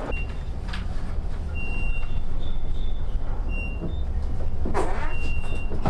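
Steady low rumble of a moving elevator car, with a few short, high electronic beeps.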